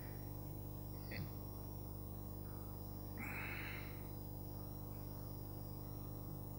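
Quiet pause in a talk: room tone with a steady low electrical hum through the sound system. A brief soft noise a little past three seconds in.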